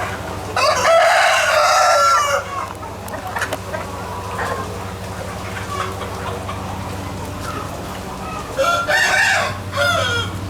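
A rooster crows twice, a long crow about half a second in and another near the end, with hens clucking between. A steady low hum runs underneath.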